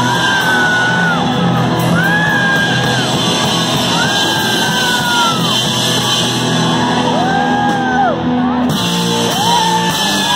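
Punk rock band playing loud live: electric guitar and drums under a yelled vocal line of held notes, each about a second long, rising and falling, echoing in a large room.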